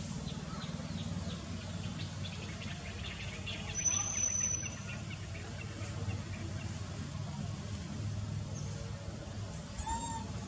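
Small birds chirping in quick runs over a steady low rumble of background noise, with a thin high whistle about four seconds in and one short call near the end.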